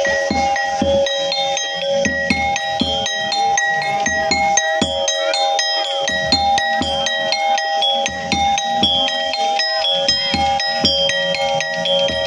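Monkey-show accompaniment music: quick metallic mallet-percussion notes over drum beats and steady held tones.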